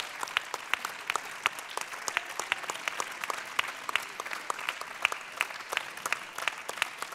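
A crowd applauding steadily, a dense patter of hand claps with single sharp, close claps standing out.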